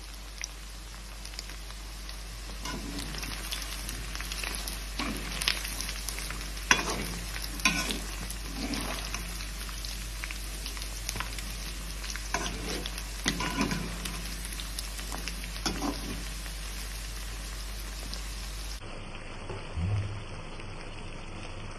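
Chicken pakora pieces deep-frying in hot oil in a metal kadai: steady sizzling and crackling, with sharper clicks and knocks as a slotted spoon stirs and lifts the pieces against the pan. Near the end the sound cuts to a quieter stretch with a single low thump.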